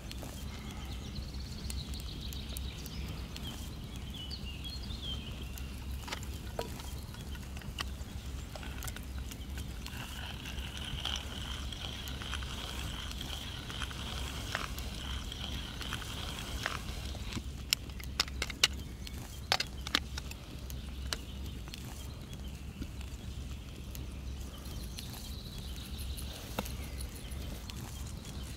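Woodland ambience: a steady low rumble with faint birdsong, a long high warbling call in the middle. Around three quarters of the way through come a few sharp clicks and taps from the seasoning being handled over the plate.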